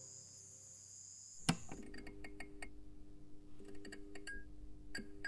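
Logo sound effect: after the faint tail of the music, a sharp hit about a second and a half in, then a scatter of small glassy clinks over a low steady drone.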